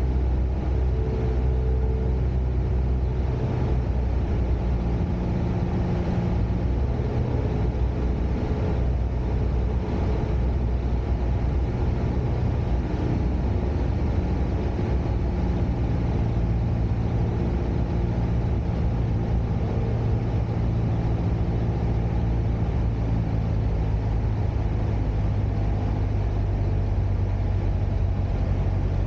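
Steady cabin drone of a Cessna 172's piston engine and propeller on landing approach, heard from inside the cabin. Its pitch shifts slightly a couple of times as power is adjusted.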